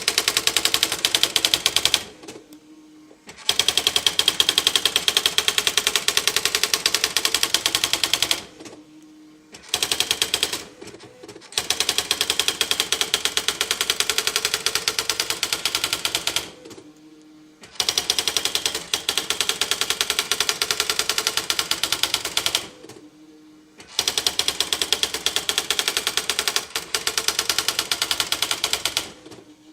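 Smith Corona electronic typewriter printing on its own at high speed, a fast, even rattle of key strikes, as its built-in demonstration program types out an advertising text. The printing breaks off in brief pauses every few seconds, with a faint low hum in the gaps.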